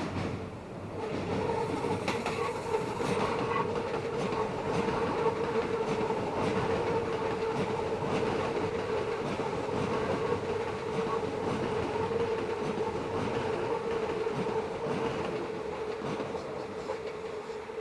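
Meitetsu electric train taking a sharp curve, its wheels squealing against the rail in one steady, sustained tone from about a second in, over the rumble and clack of the wheels on the track.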